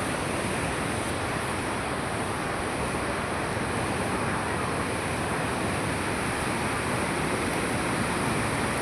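Steady rush of floodwater pouring through the dam's spillway gates, an even noise that holds without change.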